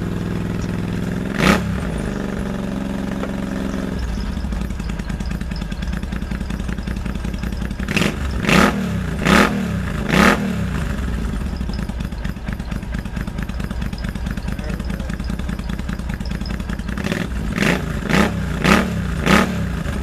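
Suzuki Volusia's 805 cc V-twin motorcycle engine idling on a cold start after sitting all winter, its idle note changing about four seconds in. The throttle is blipped once about a second and a half in, then in two sets of four quick revs.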